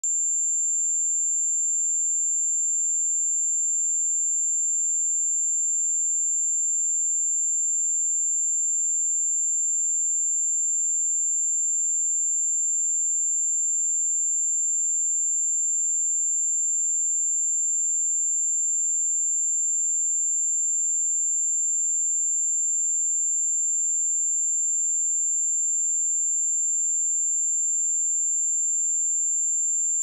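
A pure 7281 Hz sine-wave test tone, a single high-pitched steady whistle held at a constant level.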